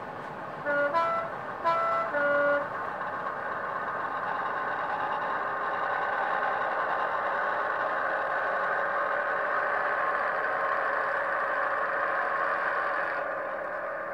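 Sound decoder of a Dapol OO gauge Class 121 model railcar playing through the model's small speaker. A two-tone diesel horn is sounded in the first few seconds, then a diesel engine sound builds and runs steadily as the model moves along the track, dropping back shortly before the end.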